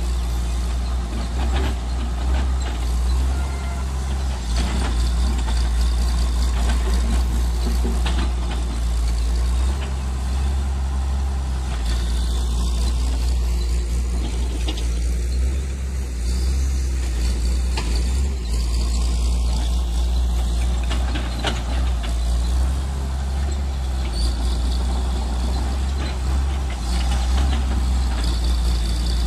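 Tata Hitachi EX130 hydraulic excavator's diesel engine running steadily as the machine digs and swings.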